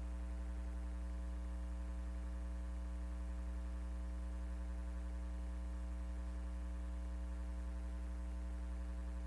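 Steady low electrical hum, like mains hum in a recording chain, holding unchanged with nothing else heard.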